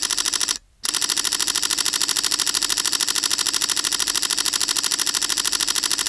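Camera shutter firing in continuous burst mode, rapid even clicks at about ten a second. A short burst ends just before a second in, then after a brief pause a long unbroken burst starts.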